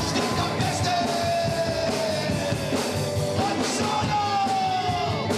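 Rock music, with two long held notes that each slide slowly down in pitch.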